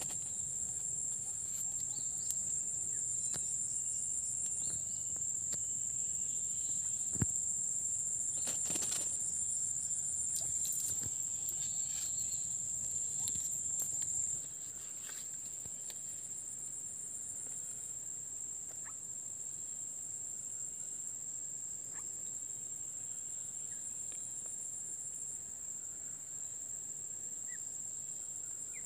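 Insects trilling steadily in a high, shrill, unbroken chorus, with a few faint rustles and knocks of handling in the first half; the whole gets slightly quieter about halfway through.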